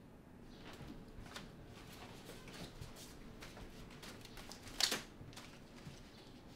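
Quiet room with soft rustling as a stack of paper greeting cards and envelopes is handled, and one brief, louder rustle a little under five seconds in.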